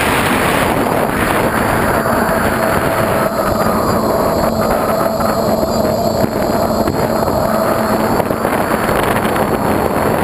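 Quadcopter's electric motors and propellers running in flight, heard through the onboard camera's microphone as a steady rush of wind and prop noise with a faint hum that comes and goes.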